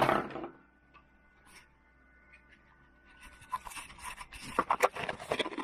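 Hard plastic clicking and scraping as a 3D-printed camera holder is handled and fitted, in irregular quick clicks starting about three seconds in.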